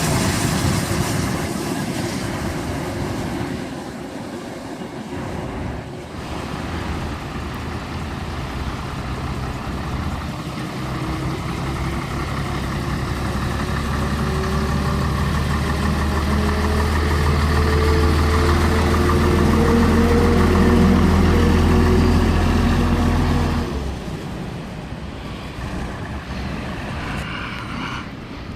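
A train pulling away, with a deep hum and a whine that climbs steadily in pitch as it gathers speed. The sound cuts off suddenly about three-quarters of the way through, leaving quieter background noise.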